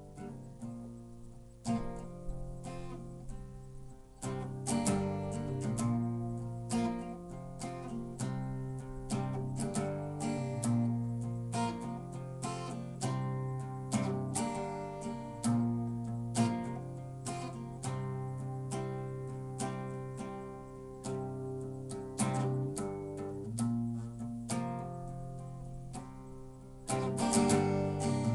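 Acoustic guitar played through a chord progression, the chords picked and strummed, with a louder burst of strumming near the end.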